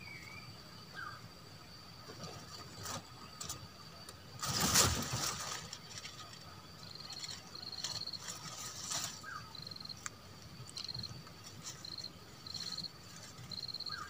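Faint grassland ambience: insects keep up a steady high drone, with short high buzzing chirps repeating through the second half. A few thin bird chirps and one brief burst of noise about five seconds in.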